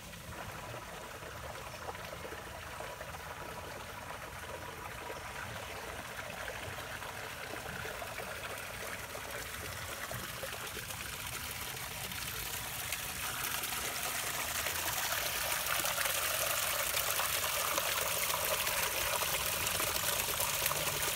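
Water trickling and splashing over rocks in a newly built, man-made rock creek running on pumped water for a test run. It grows steadily louder, ending in the splash of a small waterfall pouring over a boulder into a pool.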